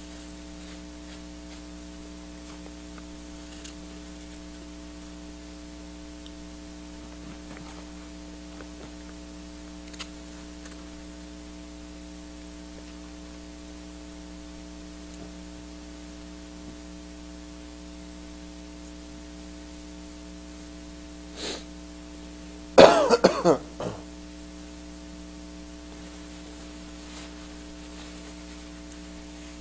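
Steady electrical mains hum in a quiet room, with a few faint small clicks. About three quarters of the way through, a person makes a brief throat sound and then coughs hard several times in about a second.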